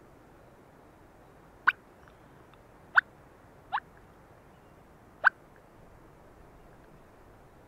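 Clucks on a mouth-blown turkey call: four short, sharp chirps, each a quick upward squeak, spaced irregularly a second or so apart.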